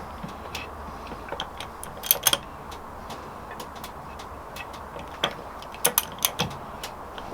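Metal parts and tools clinking and tapping as engine components are handled on a workbench: a couple of sharp clinks about two seconds in, then a cluster of four or five more in the last two seconds.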